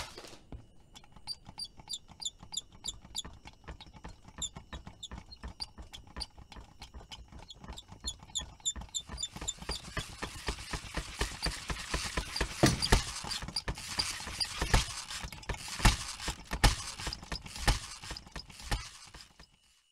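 Foley clicking and rattling for a doll's small toy tricycle rolling. It starts as a slow run of ticking clicks with light metallic pings, speeds up into a dense rattle from about halfway with a few heavier knocks, and stops abruptly just before the end.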